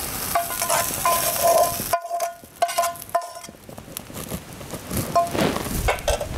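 Maize, peas and sausage frying in a pan while a utensil stirs and scrapes against the metal, giving short ringing squeaks. The sizzle drops out for about a second and a half around two seconds in.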